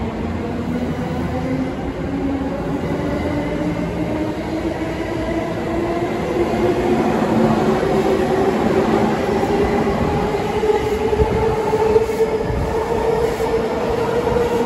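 Tokaido Line rapid electric train pulling out of the station, its traction motors whining in a slowly rising pitch as it gathers speed, over the rumble of the wheels on the rails.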